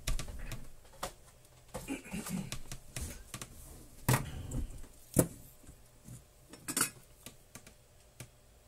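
A string of irregular sharp clicks and light clinks: small tools and parts being handled on a workbench, the loudest about four, five and seven seconds in.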